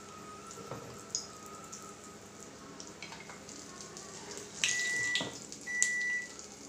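Oil sizzling and crackling as battered Chicken 65 pieces deep-fry in a kadai. About five seconds in come two louder scrapes with a squeaky tone as the slotted spoon scoops the fried pieces out along the pan.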